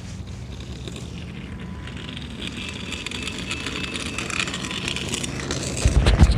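Small wheels rolling on pavement, a hiss that grows steadily louder, then heavy rumbling bursts of wind and handling on the microphone near the end.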